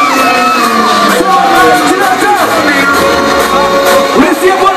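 Loud live music from a concert sound system, with voices singing and the crowd shouting over it.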